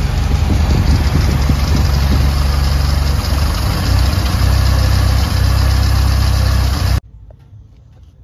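Carbureted four-cylinder engine of an early-1990s Honda Accord Maestro running steadily, then the sound cuts off suddenly about seven seconds in. The engine is hard to start and prone to stalling, and its compression is low: about 10 against a standard of 12 to 12.5.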